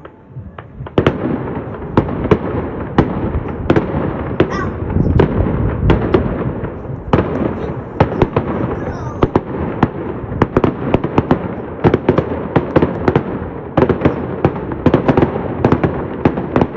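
Fireworks display: a rapid, dense barrage of bangs and crackling that begins about a second in and keeps going.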